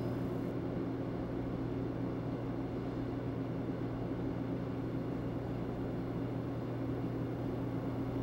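Steady low hum of commercial kitchen machinery under a light hiss, even throughout, with no bell strikes.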